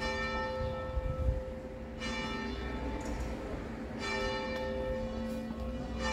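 Church bell tolling, struck about every two seconds, each stroke ringing on and fading before the next.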